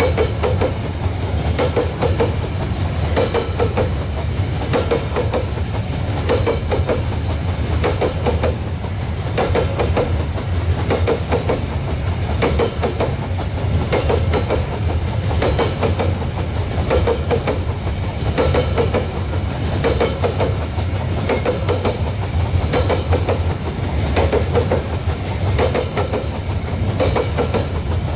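Wagons of a long Babaranjang coal train rolling past, their wheels clacking over the rail joints in a steady repeating rhythm over a continuous low rumble.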